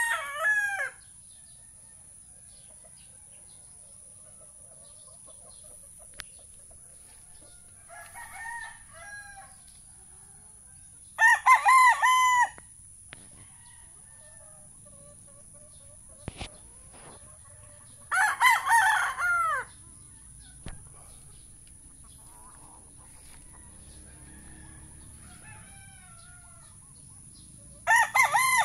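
Young gamecock stags, about five months old, crowing: several crows a few seconds apart, each about a second or so long, one of them fainter than the rest.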